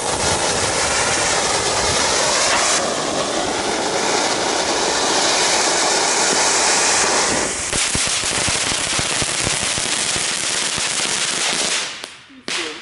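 Small Category 1 firework fountain spraying sparks with a loud steady hiss. After about seven and a half seconds it turns to a dense crackle, then dies out near the end.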